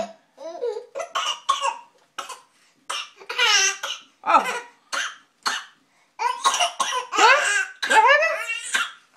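A person coughing in a string of short, separate bursts mixed with laughter, with a short "oh" midway. A closer run of pitched, laugh-like bursts comes in the last three seconds.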